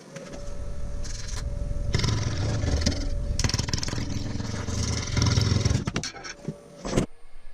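Wood lathe starting up with its motor whining, then a bowl gouge cutting into a spinning walnut blank with a loud, rough scraping from about two seconds in. The cutting breaks off near the end with a sharp knock.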